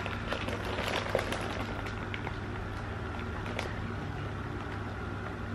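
Steady low hum of room noise, with a few soft clicks and rustles from a plastic noodle packet and a phone being handled, one near the start and another about three and a half seconds in.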